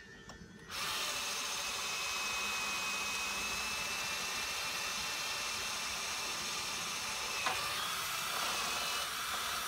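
Cordless drill running steadily with a thin motor whine, boring through a small metal plate held in a jig. It starts about a second in and stops just at the end with a click.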